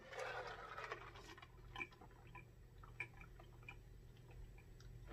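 Faint drinking sounds from a person drinking out of a large glass jar: a soft sip at first, then a few quiet gulps and mouth clicks spread out over the next few seconds.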